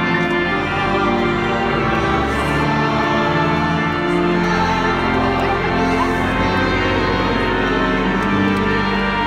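Organ music with voices singing along.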